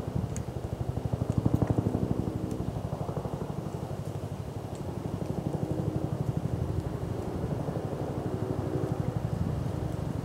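A low engine-like drone with a fast, even pulse runs steadily throughout, rising and falling a little in loudness. A few faint sharp crackles from the small twig fire come through above it.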